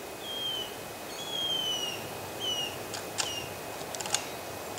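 A bird calling in a series of clear, falling whistles: a short one, a long drawn-out one of about a second, then two short ones. A few sharp clicks come near the end, the loudest about four seconds in.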